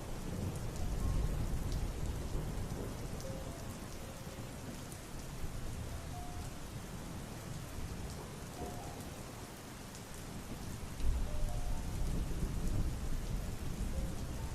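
Steady rain with low rolling thunder, the rumble swelling about a second in and again about eleven seconds in.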